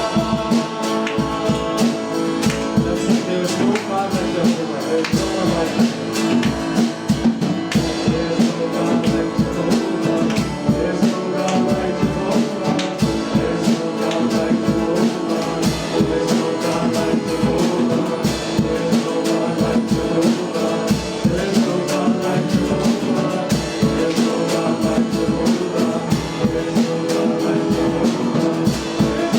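Live worship band playing, with guitar and a steady drum-kit beat, and singing.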